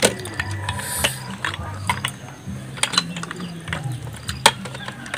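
Boiled snail shells clicking and clattering against one another and the metal tray as they are picked up and the meat is pried out: a run of short, irregular clicks.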